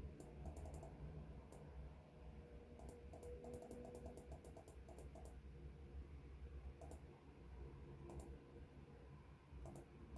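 Faint scattered small clicks over a low steady hum, with a quick run of clicks through the middle.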